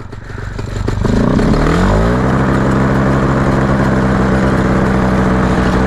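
Paramotor trike's engine and propeller throttled up for a takeoff run. The pitch climbs over about a second, starting about a second in, then holds steady at full power.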